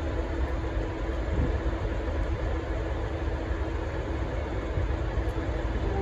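V/Line N class diesel-electric locomotive, with an EMD 645 V12 two-stroke diesel, idling at standstill with a low, steady rumble.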